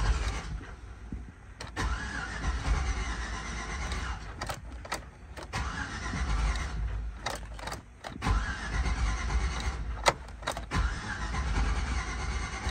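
A 2005 Chevrolet Tahoe's 5.3L V8 being cranked by the starter in several spells of a couple of seconds each, with short pauses and sharp clicks between them; the engine does not catch and run.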